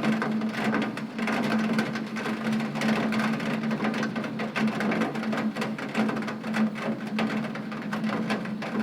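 Rain falling on a tin roof: a dense, steady patter of countless drop impacts on the metal, with a low steady hum underneath.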